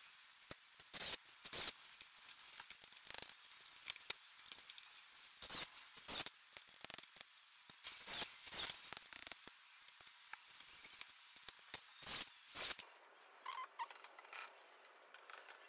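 Irregular light knocks and clicks of wooden CNC frame parts, a cordless drill and aluminium rails being handled and set against one another on a workbench.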